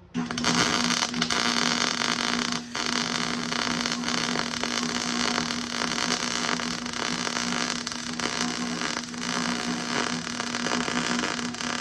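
Electric arc welding: the arc strikes at once and crackles and hisses steadily as a bead is laid on steel plate, with a steady hum underneath and a brief break in the arc about three seconds in.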